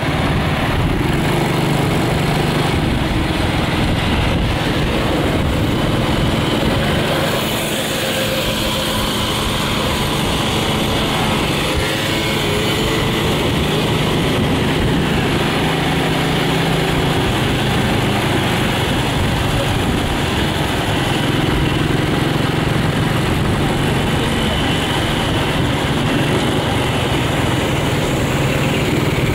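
Motorbike engine running steadily at cruising speed, with a steady low engine tone under a dense rushing noise, and city traffic around it.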